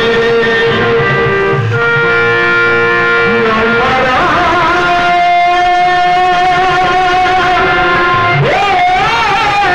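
Live folk band music for a chekka bhajana dance: a melody of long held notes that bend and waver, over drumming.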